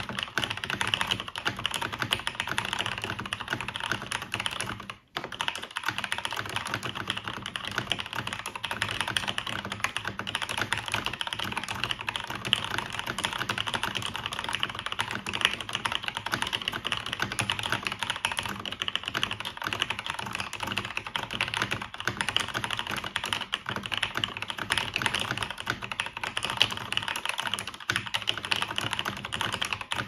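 Steady, fast typing on a 1998 Cherry G80-1800 keyboard fitted with lubed and filmed Cherry MX Black linear switches, plateless, with PBT keycaps: a dense run of keystroke clacks with one brief pause about five seconds in.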